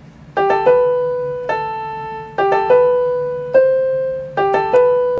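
Music on a piano-like keyboard: a short phrase of struck notes that ring out and fade, with a quick three-note figure coming back about every two seconds.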